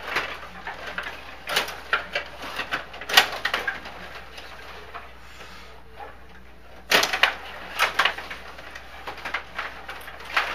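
Stiga Stanley Cup rod hockey table in play: plastic rods rattling and players clacking against the puck and boards in bursts of clicks and knocks. There is a quieter lull a little past the middle, and the clatter picks up again.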